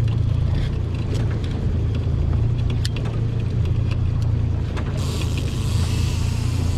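Outboard motor running steadily at trolling speed, a low even drone, with a few sharp clicks over it. A steady hiss joins about five seconds in.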